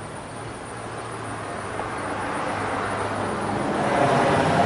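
A vehicle going by, its noise growing steadily louder and peaking near the end.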